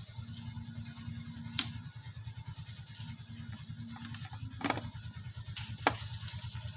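Sharp hard clicks and taps, as of tools or meter probes handled on a circuit board. Three louder ones fall about one and a half, four and three-quarters and six seconds in, over a steady low hum.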